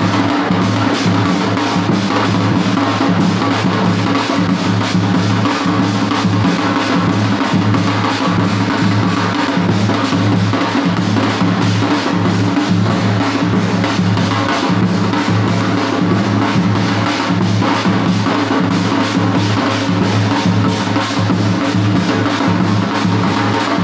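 Loud, dense drumming that runs without a break, with a steady deep drone beneath the strokes.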